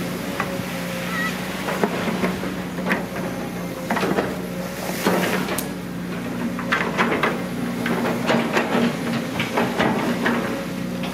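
Diesel engine of a Caterpillar long-reach excavator running steadily, with repeated splashing and clanking as its bucket digs mud and water out of a canal.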